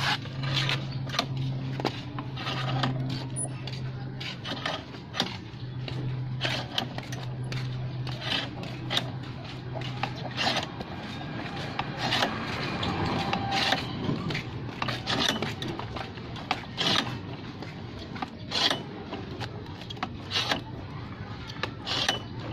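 Irregular metal clicks, clinks and scraping as a coil spring is handled on a shock absorber clamped in a threaded-rod coil spring compressor.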